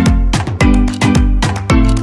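Upbeat background music with a regular beat and deep bass notes that drop in pitch.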